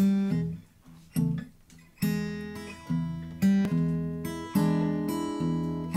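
Acoustic guitar opening a blues song: a strummed chord, another about a second later, then steady rhythmic strummed chords from about two seconds in.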